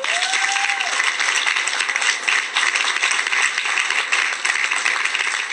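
Audience applauding, a dense steady patter of many hands clapping that starts abruptly, with a short whoop at the start.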